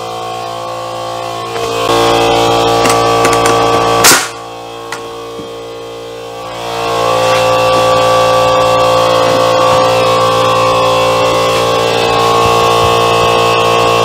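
Background music of sustained chords, with one sharp, loud crack of a pneumatic nail gun firing a nail about four seconds in.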